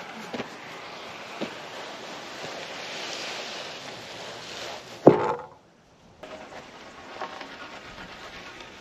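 Weathered timber boards being hauled over grass: rustling and light wooden knocks, then a loud wooden clunk about five seconds in as a board drops. The sound cuts out briefly just after the clunk.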